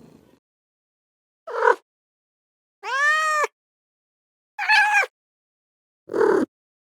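Domestic cat meowing: four separate meows with silent gaps between them, the second the longest, rising and then falling in pitch. A purr fades out at the very start.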